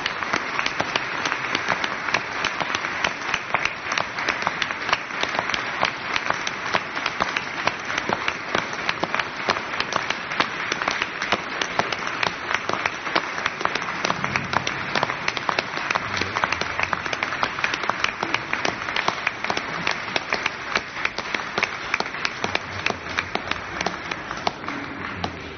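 Audience applauding: dense, steady clapping that drops away sharply at the very end.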